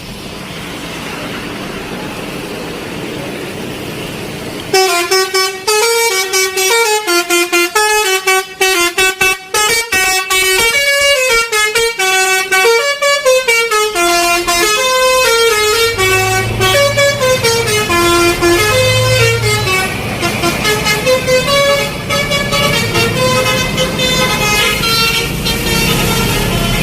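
A container truck's telolet horn, a multi-trumpet air horn, playing a quick stepping tune of loud horn notes from about five seconds in, after a few seconds of steady rushing noise. A low rumble joins underneath later on.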